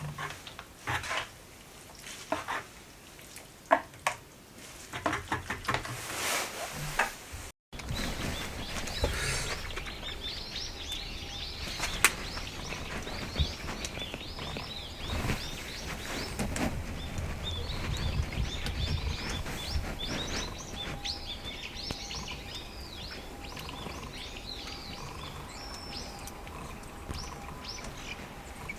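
A few scattered sharp clicks and knocks. After a sudden cut, many small birds chirp rapidly over a steady low outdoor rumble.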